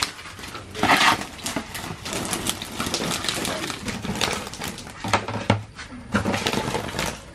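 Wet, irregular clicking and slapping from a heap of freshly caught pearl spot and mullet on a wet floor as it is worked through with plastic basins, with a louder clatter about a second in.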